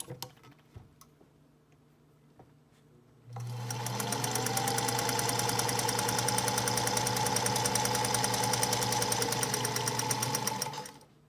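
1952 Singer Featherweight 221 sewing machine, freshly cleaned and re-oiled, sewing steadily: a motor hum with a rapid, even ticking of the needle stroke. It starts about three seconds in, after a few faint handling clicks, and stops shortly before the end.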